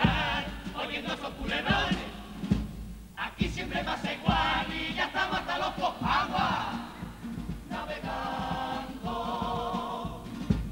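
Cádiz carnival comparsa choir singing in harmony, with guitar accompaniment and a low drum beat.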